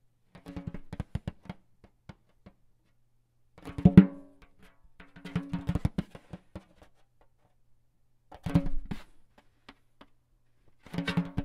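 Percussion music: sparse bursts of rapid hits with a low pitched ring, each burst about a second long, separated by short silences. The loudest burst comes about four seconds in.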